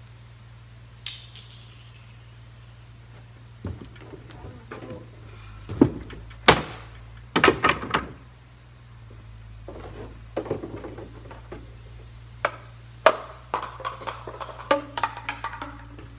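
Wooden boards and gear being lifted out of an aluminium boat and dropped onto the trailer deck: a string of irregular knocks and clatters, one near the start with a short metallic ring, over a steady low hum.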